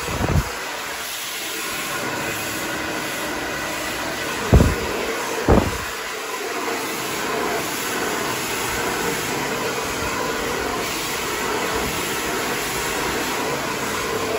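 Hand-held hair dryer running steadily, a rush of blown air with a faint hum in it. Two brief bumps about five seconds in.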